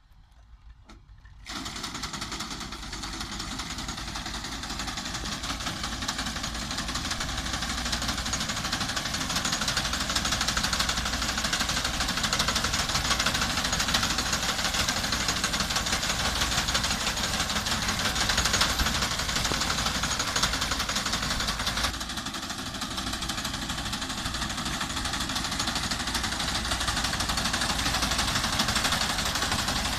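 Tractor-mounted wheat reaper at work close up: the tractor engine running with the reaper's cutter bar clattering fast and steadily as it cuts standing wheat. The noise starts abruptly about a second and a half in.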